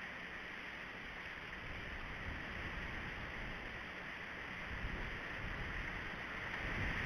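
Steady outdoor background hiss, with a low, fluttering wind rumble on the microphone that grows stronger in the second half.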